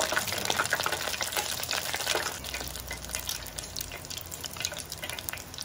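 Batter-coated mussels deep-frying in 175 °C oil in an electric deep fryer, sizzling with many small crackling pops. The sizzle eases and grows quieter over the few seconds as the bubbling calms.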